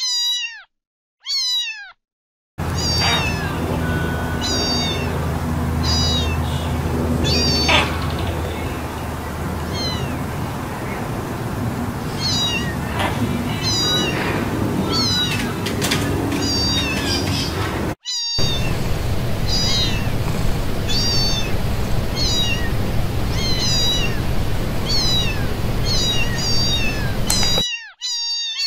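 Domestic cats meowing: a couple of clear meows falling in pitch, then long runs of short, high-pitched meows repeated about once or twice a second over a steady low background noise, and more falling meows near the end.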